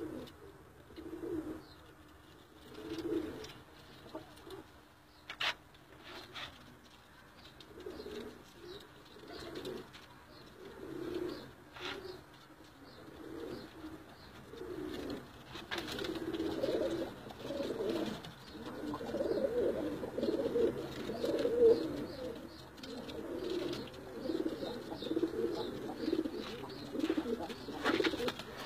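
Several domestic tippler pigeons (Iraqi × Budapest hybrids) cooing in a loft, in repeated low phrases. The cooing is spaced out at first and becomes near-continuous, with overlapping birds, from about halfway through.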